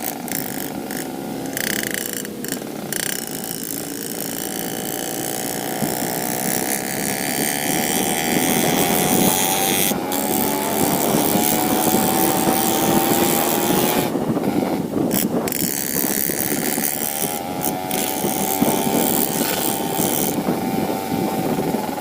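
Yamaha RX-King's two-stroke single-cylinder engine running under way. Its note climbs slowly for several seconds, dips briefly about fourteen seconds in, then holds steady.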